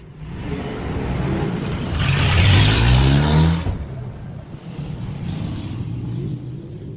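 A motor vehicle passing close by, its engine revving up with a rising pitch, loudest between about two and three and a half seconds in, then fading; a second, quieter swell of noise follows.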